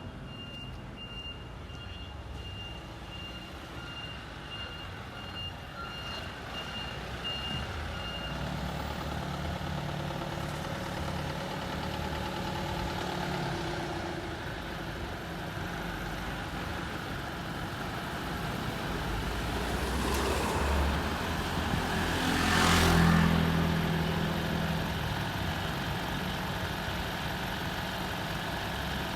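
Fire engine running while it manoeuvres and turns around. Its reversing beeper sounds as a steady series of high beeps and stops about eight seconds in. Later, a burst of loud hiss comes twice, loudest about 23 seconds in, over the engine.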